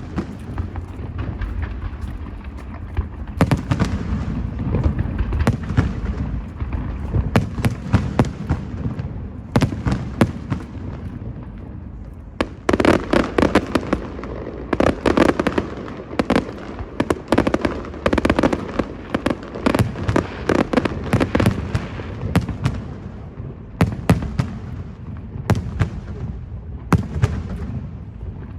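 Fireworks display: aerial shells bursting in repeated sharp bangs over a low rumble, with a dense run of rapid bangs and crackle through the middle.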